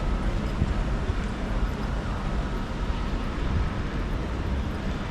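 Wind buffeting a phone microphone, a steady low rumble over faint city background noise.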